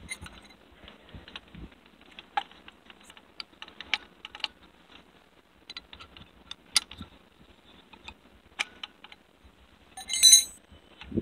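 Scattered small metallic clicks and clinks as an angle grinder's disc and flange nut are handled and turned by hand. The loudest is a ringing metal clink near the end.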